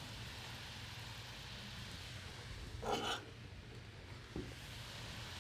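Quiet kitchen background: a steady faint hiss and low hum from the gas range with pans on the burners. About three seconds in there is one short scrape of a spoon in a pan.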